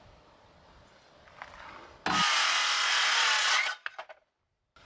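About two seconds in, a loud hissing burst from a power tool lasts about a second and a half and cuts off sharply. A few quick clicks follow.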